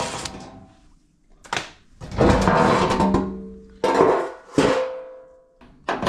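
Sharp knocks and clanks of metal appliance parts being handled, about five at irregular intervals, some ringing briefly.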